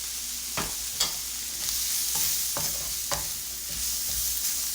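Onion, garlic and ginger with freshly added curry powder sizzling steadily in hot oil on high heat. A spoon stirs and scrapes against the pan, giving short knocks every half second to a second.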